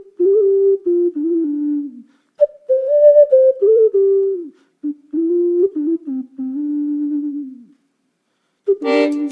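A single voice humming a slow wordless tune in short phrases of held notes that step up and down, with brief pauses between them. Near the end, fuller instrumental music with a clicking beat comes in.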